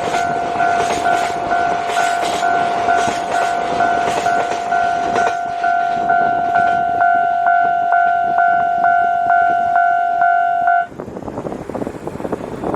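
Japanese railway level-crossing warning bell ringing in a fast, even ding-ding rhythm while freight container wagons roll past with rhythmic wheel clatter. The wheel clatter fades out about five seconds in. The bell keeps ringing and stops abruptly about eleven seconds in, as the crossing clears, leaving wind noise.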